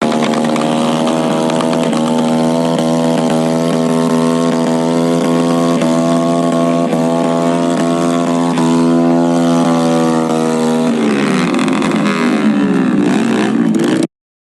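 Vehicle engine held at steady high revs, a sustained even engine note, then the revs fall away in downward sweeps before the sound cuts off suddenly near the end.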